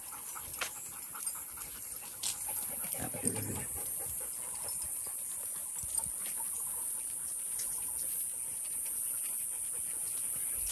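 A dog panting close by, with scattered light clicks, over a steady high-pitched buzz that lasts throughout.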